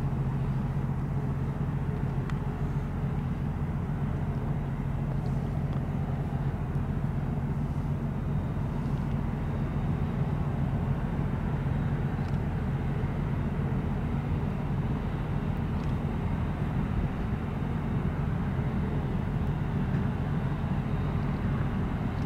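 Boeing 747-8F's four GEnx turbofan engines running at taxi power, a steady low rumble.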